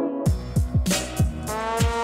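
Background music with a driving drum beat: deep kick drums several times a second under sustained pitched notes and cymbal hits.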